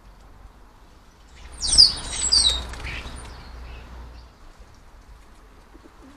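A small garden bird gives two quick, high chirps that slide downward, along with a short rush of wing flutter and a low rumble about a second and a half in.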